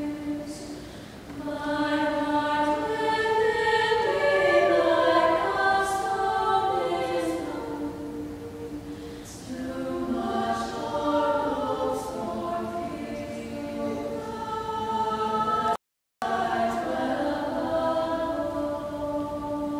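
Mixed-voice choir singing held, slowly shifting chords. The audio cuts out for a split second about three-quarters of the way through.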